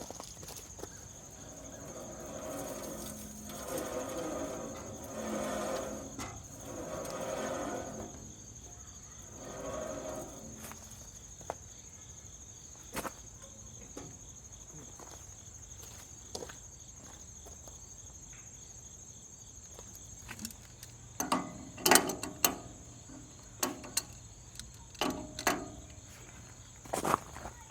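Crickets chirping in a steady high trill throughout, with a muffled murmur from about two to ten seconds in. Near the end come a run of sharp metallic clicks and clanks, from a wrench on the sawmill's tracking bolts.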